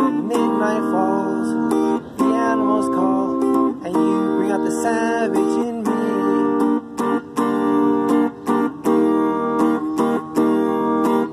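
Music: an electric guitar playing an instrumental break, with notes bent up and down over held chords.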